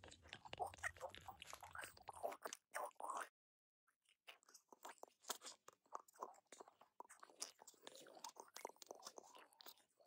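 Squishy, crunching bug sound effect: quick, irregular wet clicks and crackles like chewing. It cuts out for a moment about three seconds in, then starts again.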